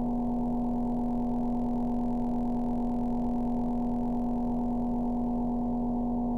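Creepy drone sound effect: a steady low humming tone with fainter higher tones layered over it and a rough rumble underneath, holding unchanged without a break.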